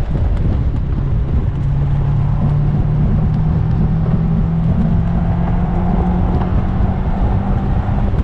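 Mazda MX-5 NC's swapped-in 2.5-litre engine running hard on track, its revs climbing slowly and steadily through one gear before levelling off near the end, heard from inside the open-top cockpit.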